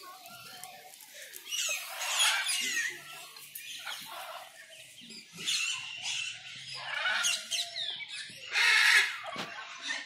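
Birds calling in short bursts of chirps and squawks, several times over, the loudest about nine seconds in.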